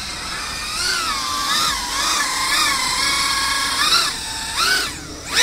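Eachine Lizard 105S mini FPV racing quad in flight on a 4S battery: its brushless motors and propellers give a high whine that rises and falls in pitch with the throttle. Near the end come two louder upward surges of throttle, the second the loudest.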